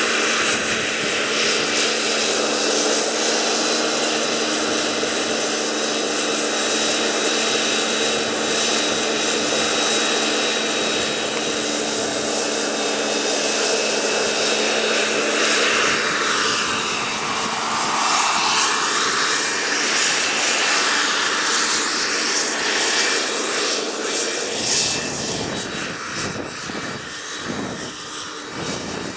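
Radio-controlled scale CH-53 helicopter's small gas-turbine engine whining steadily, together with the whir of its main and tail rotors, as the model flies low. About halfway through the sound sweeps down and back up as it moves past. Near the end it grows a little quieter, with low buffeting.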